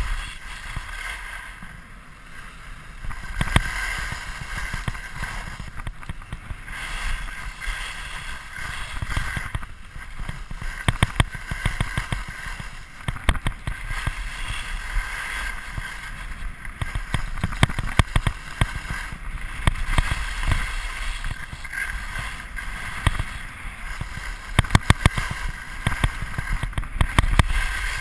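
Skis sliding and scraping over groomed snow on a downhill run, a steady rushing hiss with frequent small irregular knocks and clatters, and wind buffeting the microphone.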